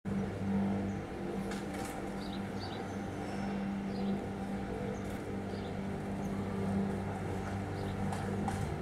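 Steady low mechanical hum, with faint short high chirps and a few light clicks on top.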